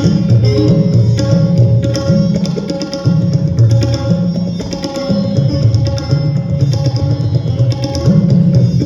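Hindustani classical tabla playing: a dense run of strokes, with the bass drum's deep tones shifting up and down in pitch, accompanied by a plucked string instrument over a steady sustained tone.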